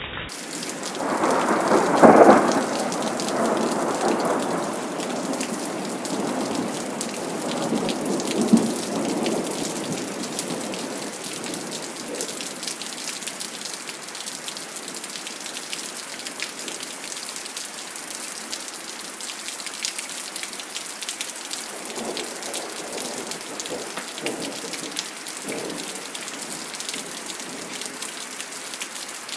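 Thunderstorm: steady heavy rain falling, with a loud clap of thunder about two seconds in that rolls on for several seconds, a sharper crack around eight seconds in, and fainter rumbles of thunder later on.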